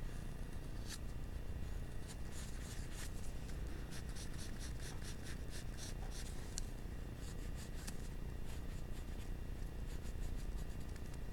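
Graphite pencil scratching on paper in a run of quick shading strokes, thickest in the middle, with a few more strokes near the end.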